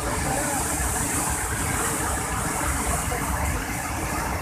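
Waterfall and white-water rapids rushing over rocks and a weir: a steady, loud, unbroken rush.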